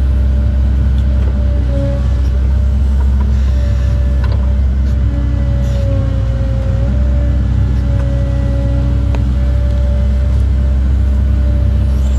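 Cat 309 excavator running steadily under load, heard from inside its cab: a deep engine drone with a hydraulic whine on top that shifts slightly in pitch as the boom and bucket are worked.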